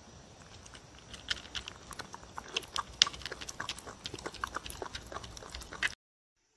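A dog eating dry kibble and wet meat chunks from a wooden bowl: a fast, uneven run of wet smacks, chewing and licking clicks, which stops abruptly near the end.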